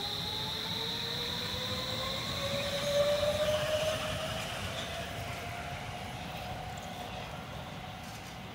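Stockholm metro train pulling past and away, its electric traction motors whining steadily upward in pitch as it gathers speed. A steady high whine fades out about three and a half seconds in. The sound is loudest about three seconds in, then falls away.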